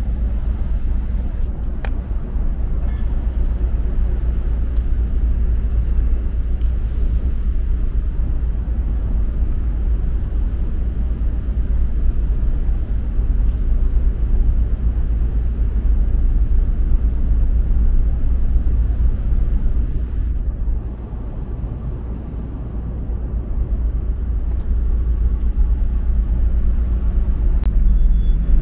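Steady low rumble aboard a car ferry manoeuvring into port: ship's machinery and the open air of the deck. It eases for a couple of seconds about three quarters of the way through, then builds again.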